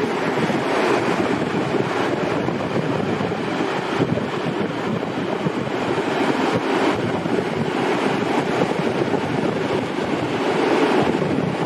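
Freight train of loaded container flat wagons rolling past, a steady noise of steel wheels on the rails.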